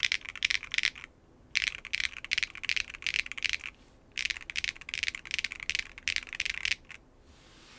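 Mechanical keyboard with Keygeek B1 linear switches being typed on: a Neo 75 with no foam, a carbon fibre plate and GMK keycaps, giving clacky keystrokes. The keystrokes come in three fast runs with short pauses between them and stop about seven seconds in.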